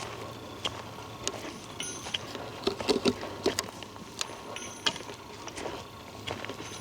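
Footsteps of a person walking on a trail, a step roughly every half second, with a louder cluster of steps about three seconds in.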